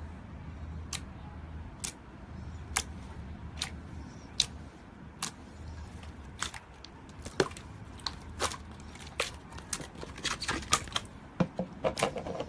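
Slime being pressed and squeezed, its trapped air letting off sharp popping clicks. They come about once a second at first and crowd together faster near the end.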